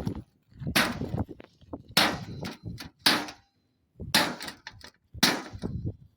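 A crowbar striking a microwave oven five times, about once a second, each blow a sharp bang with a short rattle after it.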